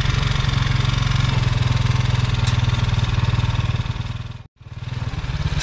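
Motorcycle engine running steadily while riding along a dirt road. The sound cuts out for a split second about four and a half seconds in, then comes back.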